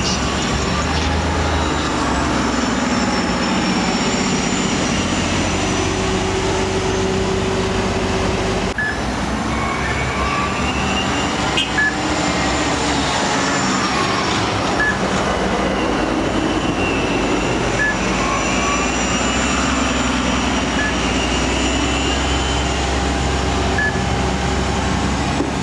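Orion VII hybrid-electric city buses pulling away from a stop: a steady engine and traffic rumble with a whine from the electric drive that rises and falls in pitch as the buses accelerate.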